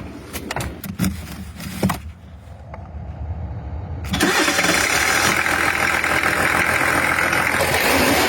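A few clicks, then about four seconds in a Mercedes-Benz car engine starts and keeps running steadily.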